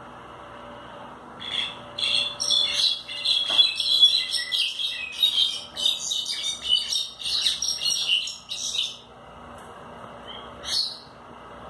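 Brown-backed solitaire (Myadestes occidentalis) singing a long, rapid, tumbling run of high notes that starts about a second and a half in and lasts some seven seconds, followed by a single short note near the end.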